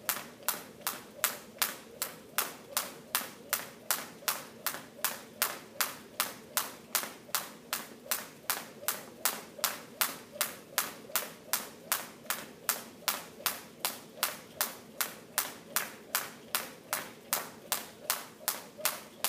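Skipping with a jump rope on a hard gym floor: a sharp slap of rope and shoes on the floor with each turn, in an even rhythm of about two and a half a second.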